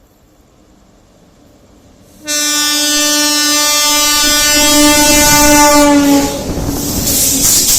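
WAP7 electric locomotive's horn sounding one long blast: faint at first, it turns suddenly loud about two seconds in and holds for about four seconds. It cuts off about six seconds in, and the loud, even noise of the train rushing past follows.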